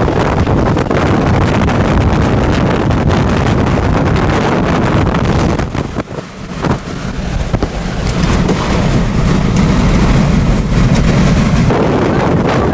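Strong wind buffeting the microphone: a loud, steady low rumble that dips briefly about six seconds in, then returns.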